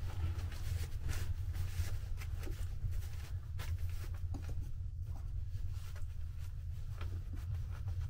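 Hands rustling and pressing a plastic membrane against a log ceiling beam, with irregular crinkles and small taps over a steady low hum.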